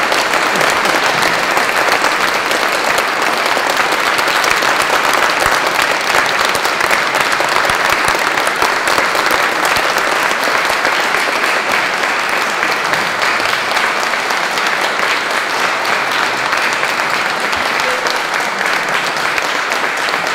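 An audience applauding: sustained, dense clapping from a large seated crowd, easing off slightly toward the end.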